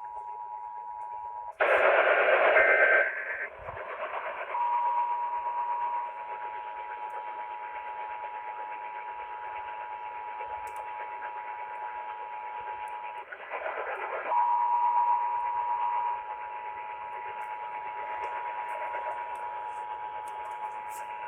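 Emergency Alert System attention signal heard over a radio: the two steady tones sounding together, the 853 Hz and 960 Hz pair. It is broken twice by a loud burst of harsh noise, about two seconds in and again about thirteen seconds in, and the tones come back after each burst.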